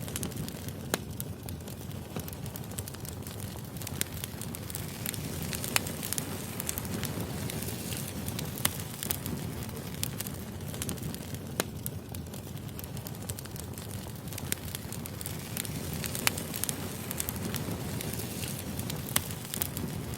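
Wood fire burning: a steady low rumble of the flames with irregular sharp pops and crackles of the burning logs.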